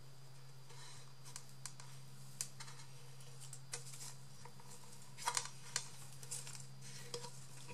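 Scattered light clicks and rustles of hands handling a small wooden box and a strip of fabric trim, with a short cluster of louder clicks a little past halfway. A steady low hum runs underneath.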